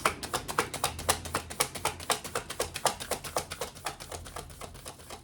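A tarot deck being shuffled: a rapid, even run of card clicks, about eight a second, growing fainter toward the end.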